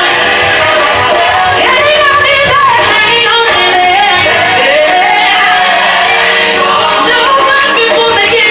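A woman singing gospel into a handheld microphone, amplified over instrumental backing, with held notes and pitch runs that bend up and down.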